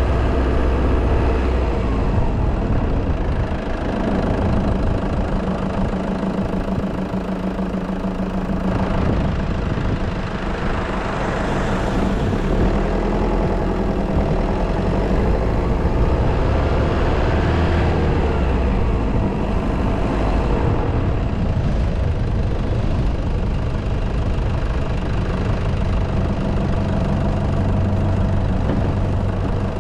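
A vehicle's engine running as it drives along a street, its pitch rising and falling a few times through the middle as it speeds up and slows.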